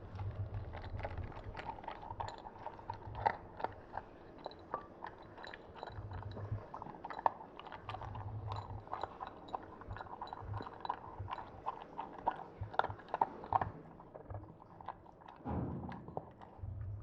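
A dog eating its meal from a bowl: quick, irregular chewing and crunching mixed with sharp clicks, which die down about fourteen seconds in.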